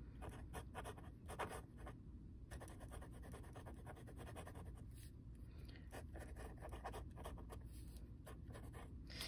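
Fine-tip gel pen writing on lined notebook paper: faint, uneven scratching strokes as letters are written. The pen writes dark but not very smoothly.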